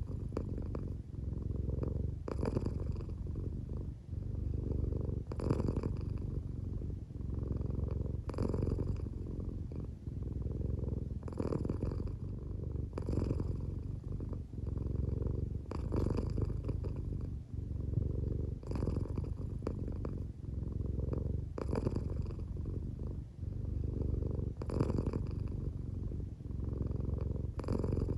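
American Shorthair cat purring steadily while drowsy and half asleep, a low continuous rumble with a breathy rasp on each breath about every three seconds. The owner thinks the purr may be partly snoring.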